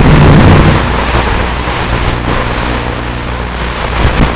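QX80 micro quadcopter in flight, heard as a steady rushing, wind-like hiss with a low hum beneath it. It is loudest in the first second.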